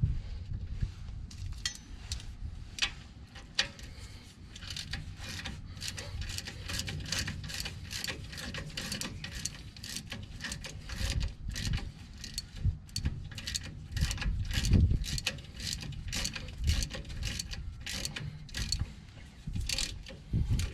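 Hand ratchet wrench clicking in quick runs, tightening the bolts of a new front brake caliper, with some clinks and knocks of metal parts.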